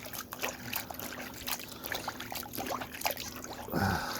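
Water trickling and dripping during wet cloth cleaning, with many small, quick wet ticks and splashes.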